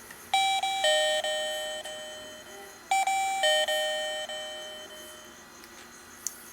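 Digoo DG-XYA doorbell's electronic chime playing a two-note ding-dong twice, a higher note then a lower one, each ringing out and fading over a couple of seconds. A short click near the end.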